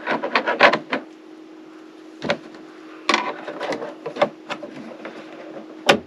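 Plastic vent grille of an RV air conditioner's ceiling assembly being pushed and fitted into place: a run of rattling clicks in the first second, a single click about two seconds in, more clicking and rattling from about three seconds, and a sharp snap just before the end.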